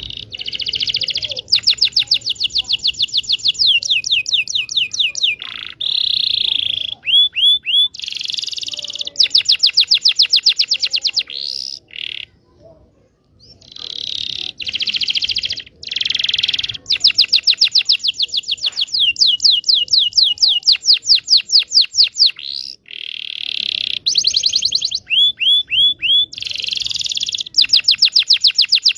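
Domestic canary singing long rolls: fast trills of rapidly repeated high notes, broken by short chirps and a brief pause near the middle.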